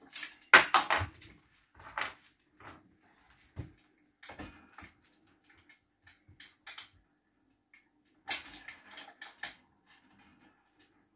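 Knocks, clicks and rattles of shelf panels being fitted into a metal-frame chest of drawers, loudest in a quick cluster at the start and again about eight seconds in, with lighter taps in between.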